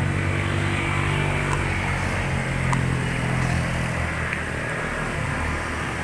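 Motorcycle engine running steadily while riding, with wind noise over it.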